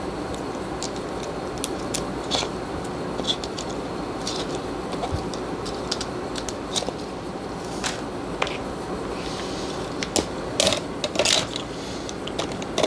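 Plastic display bezel of a Framework 13 laptop being handled and fitted to the screen frame: scattered light clicks and taps, with a few louder clicks near the end as the bezel snaps onto its magnets.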